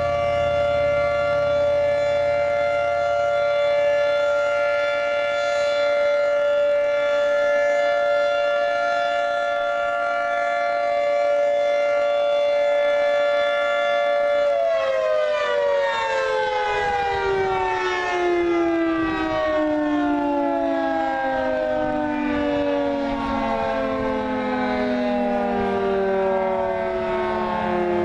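Federal Signal 2T22 dual-tone outdoor warning siren sounding a steady two-tone chord. About halfway through it winds down, its pitch falling slowly and continuously.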